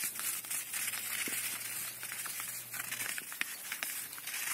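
Puppies scrambling and scrabbling on artificial turf around a dragged rope toy: a busy crackly rustling made of many small clicks and scratches.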